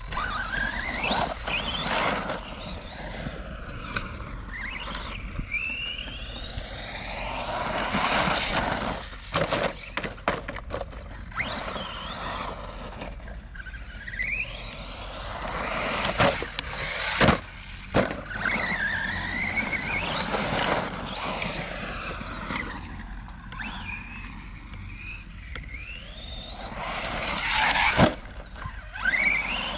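Redcat Camo TT Pro RC trophy truck running on a 3S LiPo: its brushless electric motor whines, rising and falling in pitch again and again as it speeds up and slows over the dirt jumps. Sharp knocks come in between, the loudest about two thirds through and near the end.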